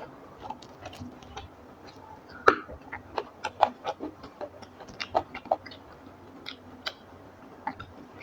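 Close-miked eating of rice and fish curry: irregular wet mouth clicks and smacks of chewing, the loudest about two and a half seconds in.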